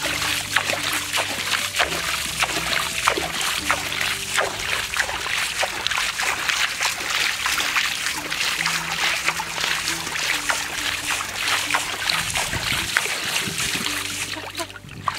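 Background music with steady low notes over hands splashing and sloshing in shallow, muddy pond water, with many short splashes.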